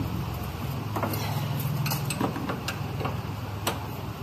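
A metal wrench clicking and ticking against the camber top-mount's threaded top ring as it is tightened: a few light, irregular clicks over a steady low hum.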